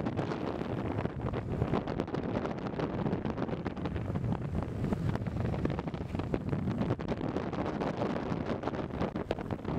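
Heavy wind buffeting the microphone at downhill speed, over the steady roll of longboard wheels on asphalt.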